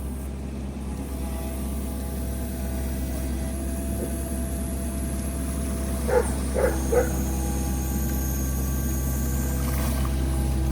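Mini excavator engine running steadily while it digs, with three short dog barks about six seconds in.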